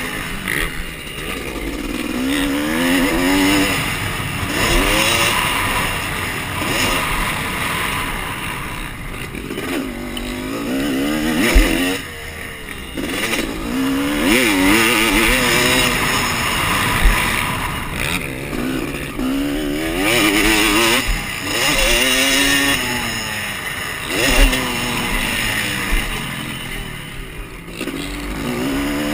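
Dirt bike engine revving up and dropping back over and over as the bike is ridden around a motocross track, with a few sharp knocks along the way.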